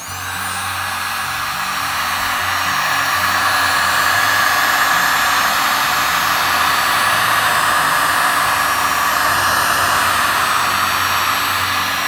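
Electric heat gun blowing hot air over a wet resin pour: a steady rushing blast with a low motor hum, building up in the first second and then holding steady.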